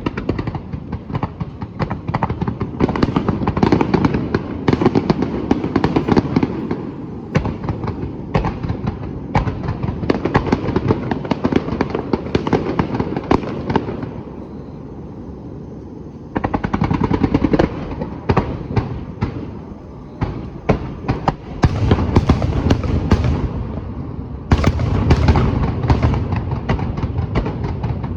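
Fireworks display: a dense barrage of bursting shells with sharp crackling bangs over a low rumbling boom. It eases off briefly about halfway through, then resumes, with heavier booms near the end.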